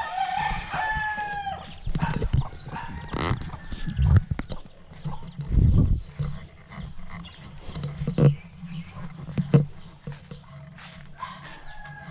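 Rooster crowing in the first second and a half, with a shorter call near the end. Between them come several dull low thumps.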